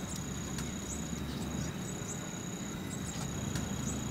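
Night insects trilling steadily at a high pitch, with a few faint short clicks over a low background rumble.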